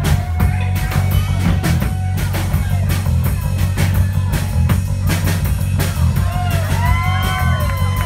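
Live rock band playing: electric guitar, bass guitar and drum kit, with a steady drum beat.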